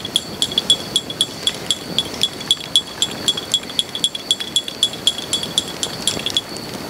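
Teaspoon stirring in a small cup or glass: a quick, regular metallic clinking of about four or five strikes a second that stops just before the end.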